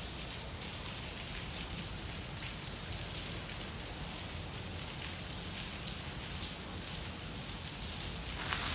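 Steady rain falling, an even hiss with scattered drops, and a couple of short sharper sounds near the end.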